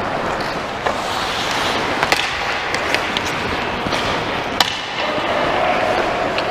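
Hockey game play: a steady scraping hiss with about half a dozen sharp clacks of sticks and puck, the loudest about two-thirds of the way in.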